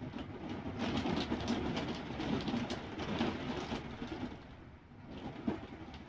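Storm wind gusting hard, with a rattling clatter; it eases about four seconds in, a single knock follows, and the gusts pick up again.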